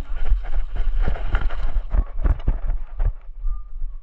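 Quick, irregular footsteps of a player moving fast, with gear knocking and rattling, over a steady low rumble.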